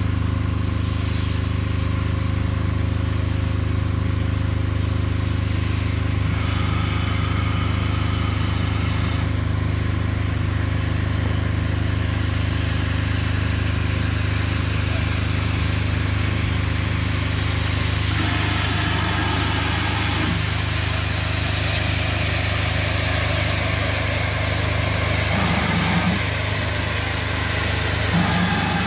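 A steady low engine drone, like an idling engine, holds unchanged throughout. From about two-thirds of the way through, a hiss of steam from the Great Western Large Prairie tank locomotives joins it as they draw up close.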